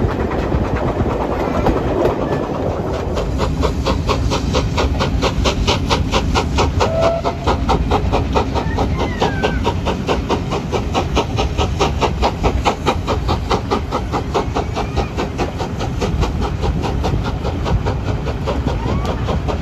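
Steam locomotive working hard at the head of the train, heard from a carriage window: its exhaust beats come in a fast, even rhythm from about three seconds in, over the steady rumble of the coaches on the rails.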